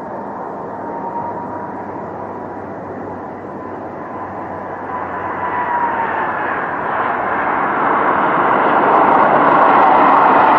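Airbus A330 airliner's jet engines on approach to land: a steady roar with a high whine, growing louder as the plane nears. The whine drops in pitch about six seconds in.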